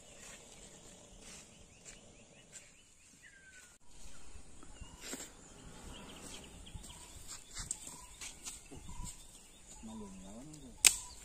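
Faint rural outdoor ambience with scattered bird calls, and a wavering call a little before the end. A single sharp click is the loudest sound, just before the end.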